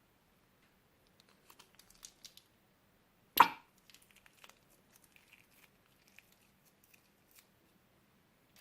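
Plastic bag crinkling lightly, then one loud, short tear about three and a half seconds in, followed by faint scattered crackles.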